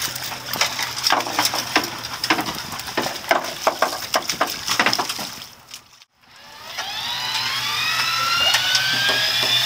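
Rapid irregular clicks and taps for the first five or so seconds. Then, after a brief gap, an electric fishing reel's motor starts up with a whine that rises in pitch and levels off as it winds in line.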